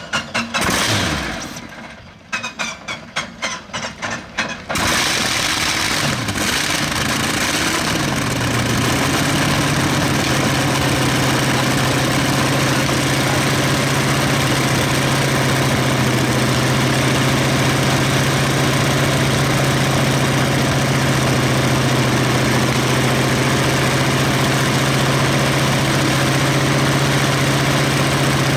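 A 1000 hp single-row aircraft radial engine being started: a falling whine as the hand-cranked starter winds down, then a few uneven firings as the engine turns over, until it catches about five seconds in. It then runs loud and settles into a steady idle.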